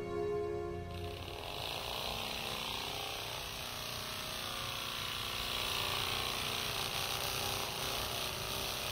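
Nano Air Vehicle, a hummingbird-shaped flapping-wing drone, hovering: its small electric motor and wing-flapping drive make a steady, hissing whir. Background music fades out about a second in.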